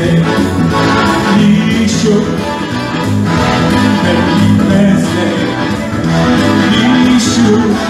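Loud dance music with a singer, played at the party by a keyboardist-singer, with a steady repeating bass line.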